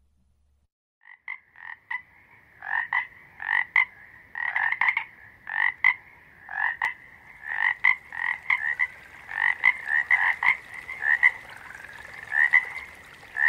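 Frogs calling in a chorus, starting about a second in: many short croaks repeated in quick runs, often overlapping.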